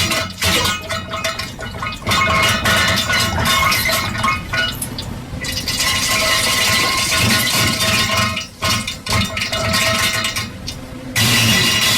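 Bass-boosted, distorted diarrhea sound effects: wet spluttering and splashing noises in a dense, choppy run, with a short dip about eight and a half seconds in.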